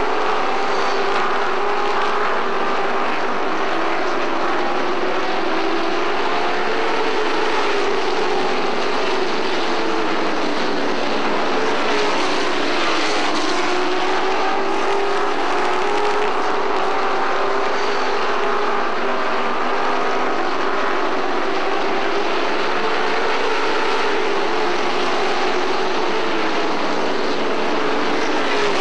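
Engines of a field of racing pickup trucks running laps on an asphalt oval. It is a continuous engine sound whose pitch falls and rises again in slow waves as the trucks brake into the turns and accelerate out.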